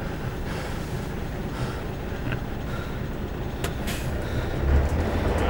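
Bus engine running with a steady low rumble, with a couple of sharp clicks about two-thirds of the way through; the rumble gets louder near the end.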